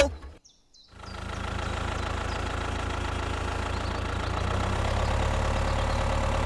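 An engine running steadily at idle, with a deep, even rumble. It starts about a second in after a brief silence.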